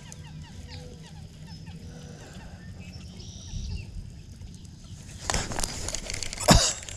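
A bird calling in a quick series of short falling notes during the first couple of seconds, then a burst of rustling handling noise with a sharp knock near the end as the rod and baitcasting reel are handled.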